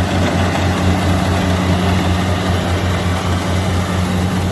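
Kubota DC70 combine harvester's diesel engine running steadily at a loud, even level, with a deep, even throb.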